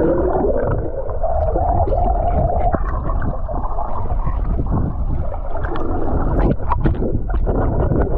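Muffled underwater sound from a camera held below the surface: churning, gurgling water against the housing with a heavy low rumble and scattered small clicks, and a muffled wavering tone about two seconds in.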